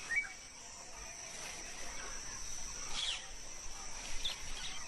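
Forest ambience: a steady high-pitched insect drone with a few short bird chirps.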